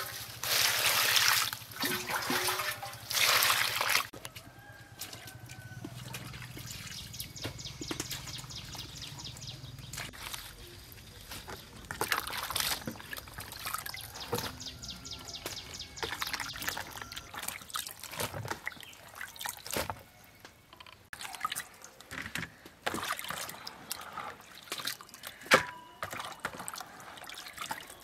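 Water splashing and trickling as vegetables are washed by hand in a plastic basin, loudest in the first few seconds, followed by quieter sloshing and scattered knocks.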